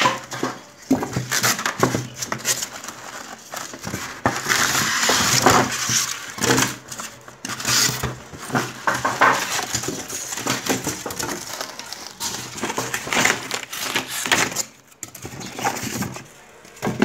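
Styrofoam packing blocks being pulled and shifted in a cardboard shipping box: irregular scraping, rubbing and crackling, easing off briefly near the end.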